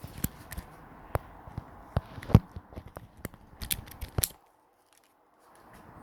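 Irregular sharp clicks and knocks as the pit bike's ignition key is turned and its controls are handled. They stop abruptly about four and a half seconds in.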